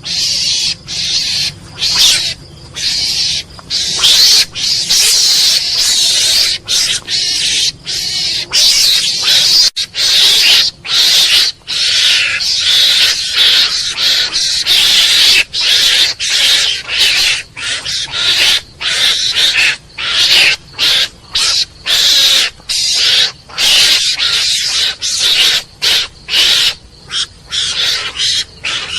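Mongoose calling: high, harsh, raspy chattering calls repeated in quick runs with short breaks between them.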